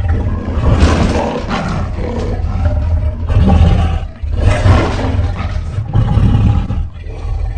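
Monster creature sound effect: a run of deep, loud roars and growls, one surge after another, with a short break about four seconds in.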